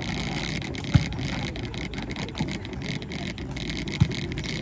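Volleyball being struck during play: short, sharp thumps, two loud ones about three seconds apart and a fainter one between, over a steady background rumble.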